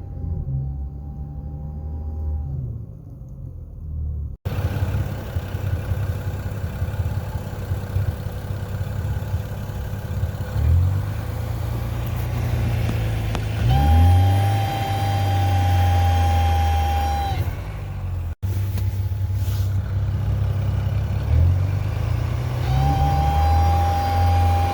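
BMW N55 turbocharged inline-six pulling under load, its engine note rising in pitch several times. A steady high whine comes in over it in stretches, most clearly for a few seconds about two-thirds of the way through and again near the end. The owner suspects the oil filter.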